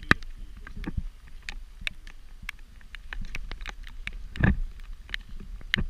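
Footsteps on gravel and handling knocks from a hand-held camera: scattered irregular clicks, with a louder, deeper knock about four and a half seconds in.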